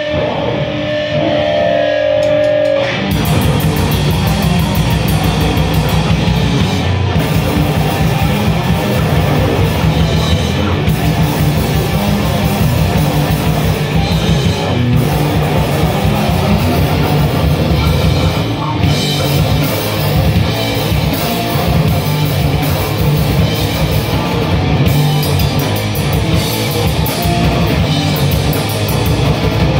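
Loud live band with distorted electric guitar and drum kit. It opens on a held, steady guitar tone, then about three seconds in the full band crashes in and plays on, dense and heavy.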